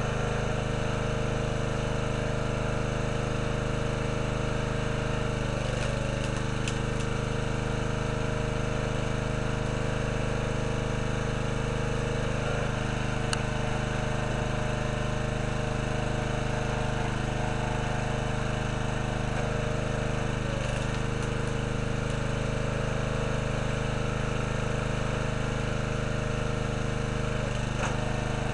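Small gasoline engine of a hydraulic log splitter running steadily. Its note dips briefly about every seven seconds as the ram drives a log through the wedge, with a few faint cracks from the splitting wood.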